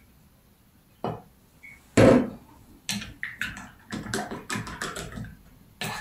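A glass bottle set down on a table with a loud knock, then a paintbrush handle stirring water in a glass jar, clinking and tapping against the glass in a quick run of clicks.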